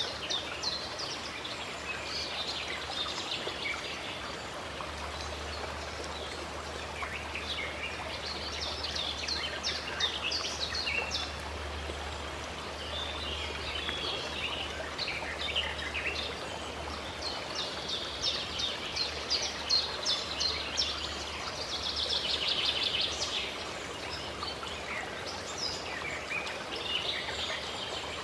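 Running water with a steady rush, over which small songbirds chirp and twitter throughout, with one fast, dense trill a little past two-thirds of the way through.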